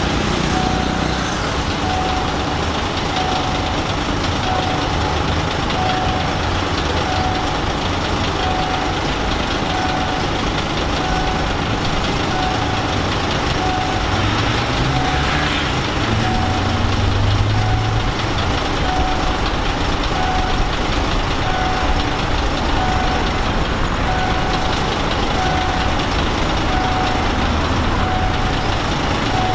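Railway level-crossing warning signal sounding a short tone about once a second, starting about a second in, over steady engine and road-traffic noise; a vehicle engine grows louder around the middle.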